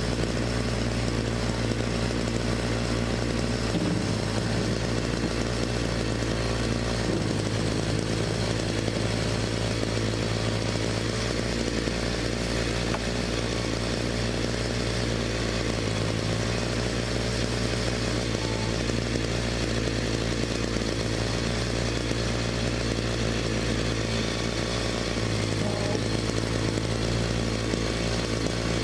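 Ford 1710 tractor's three-cylinder diesel engine running steadily under load while its forks move a heavy wooden hunting blind, its engine speed stepping up and down a few times.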